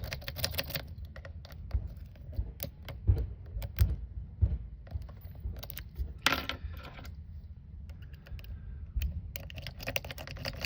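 Lock picks working in the keyway of a brass American Lock Series 20 padlock during hybrid picking: irregular small metallic clicks and rattles. A few louder knocks come about three to four seconds in, and a short scraping rattle about six seconds in, over low handling rumble.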